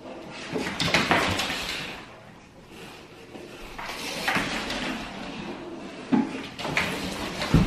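A Bernedoodle puppy's claws scrabbling and skidding on a hard plank floor in several spurts as it chases a toy on a cord that is dragged across the floor, with a sharp knock near the end.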